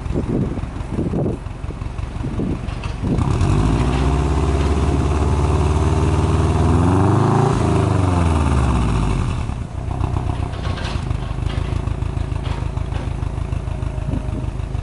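Subaru Impreza WRX STi's flat-four boxer engine being free-revved while the car stands still, heard at the tailpipe. A few quick throttle blips come first, then a long rev that climbs for about four seconds and falls back. It settles to a lumpy idle with a few light blips near the end.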